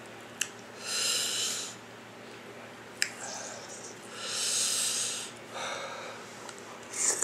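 Close-up eating mouth sounds: two drawn-out airy sucks of about a second each, with a few sharp lip and tongue clicks between them.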